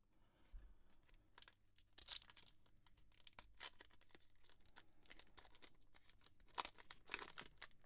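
Faint crinkling and rustling of plastic or foil as trading cards and their wrapping or sleeves are handled, in short irregular crackles that grow a little louder after about two seconds, with the sharpest near the end.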